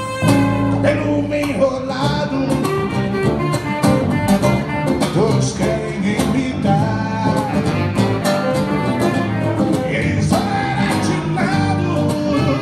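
A small live band playing: saxophone, guitar and bass guitar together, with the saxophone's line over the guitar and bass.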